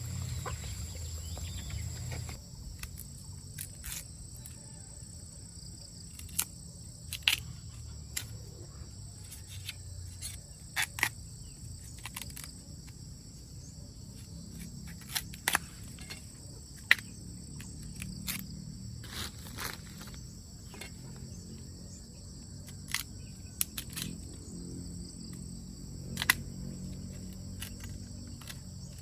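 Steady high-pitched insect chorus, typical of crickets, with scattered sharp clicks and snaps breaking in irregularly every second or two.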